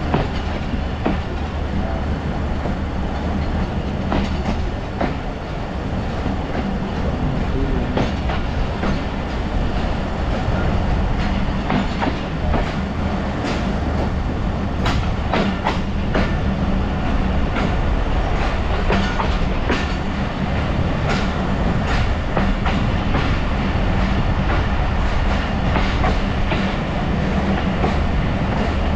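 Passenger train coaches rolling along, heard from an open coach window: a steady running rumble with wheels clacking over rail joints. About halfway through comes a run of sharper clacks.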